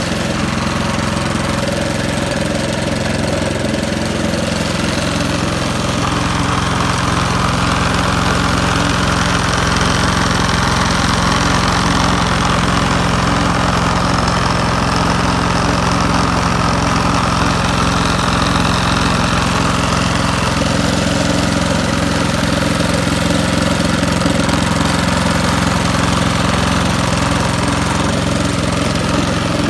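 Snowblower's small gasoline engine running steadily.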